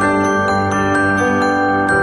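Background music with struck, bell-like notes ringing over held tones.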